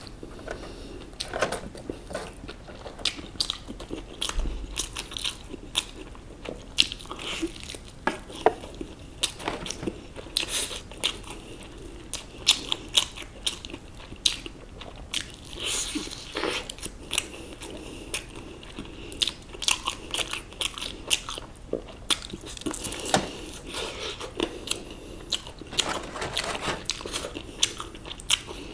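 Bites into crispy KFC fried chicken and chewing, with many sharp crunches of the crust coming irregularly throughout.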